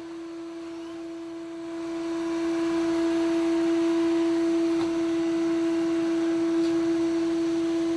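Robot vacuum cleaner running: a steady humming tone over a whirring hiss that grows louder about two seconds in.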